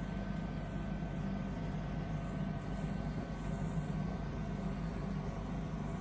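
Guinness stout running from a bar tap into a pint glass, over a steady low mechanical hum.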